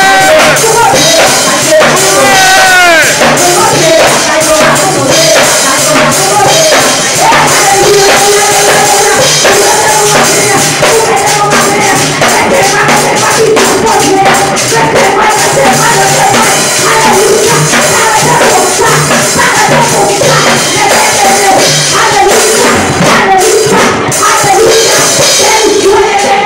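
Loud worship music through a PA loudspeaker: singing voices over a band with percussion, continuous throughout.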